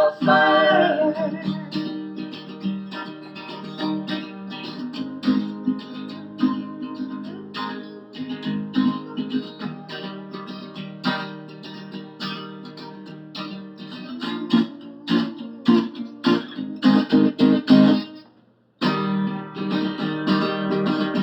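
Acoustic guitar playing an instrumental break after a held sung note: picked and strummed chords that grow louder in the second half. About three seconds before the end the guitar stops dead for half a second, then the strumming resumes.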